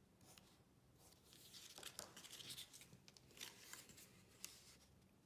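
Faint rustling and crinkling of folded designer series paper being handled and picked up, with a few light clicks, from about a second in until near the end.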